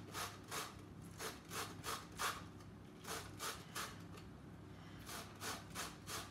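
Half a lemon rubbed up and down a stainless steel box grater to take off the zest: a run of short scraping strokes, about two to three a second, with a couple of brief pauses.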